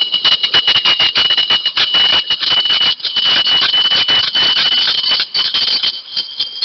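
Porter-Cable portable band saw cutting through a steel track pin held in a vise: a steady shrill squeal over fast, rough chatter from the blade. The saw cuts off right at the end as the pin is cut through.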